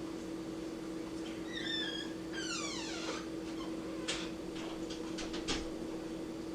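An animal's cry: a short high call, then a longer call that slides steeply down in pitch, followed by a few sharp clicks, over a steady low hum.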